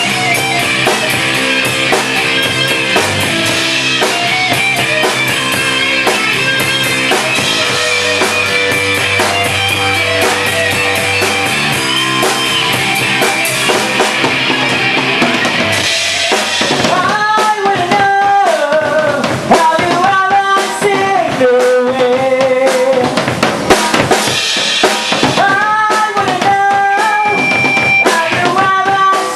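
A rock band playing live: electric bass, electric guitar and drum kit. About halfway through, the dense sustained chords thin out and a melody with sliding, bending notes takes the lead over the drums.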